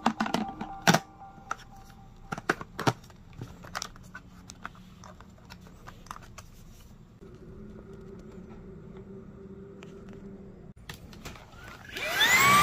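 Sharp plastic clicks and knocks as the Dreame V11 cordless vacuum's filter cap is twisted and pressed home on its cyclone housing. Near the end the vacuum's motor starts, a rising whine that settles to a steady pitch.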